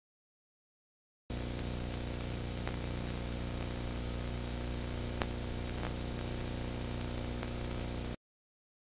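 Steady hiss of a recording's background noise with a low electrical hum, cutting in a little over a second in and cutting off sharply near the end, with dead silence either side; a few faint ticks in between.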